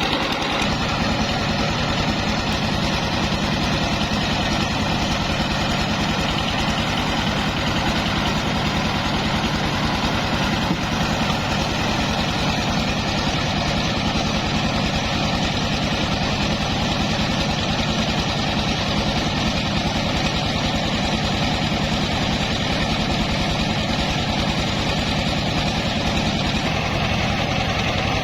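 Mobile rice milling machine running steadily: a constant engine drone under an even, dense mechanical hiss from the mill.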